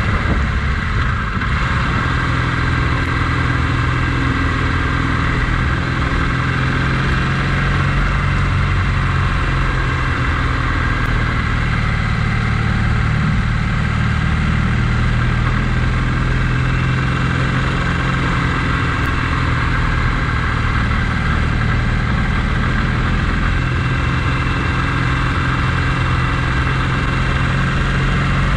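A vehicle engine running steadily at an even pace, with a steady hiss of road or wind noise above it.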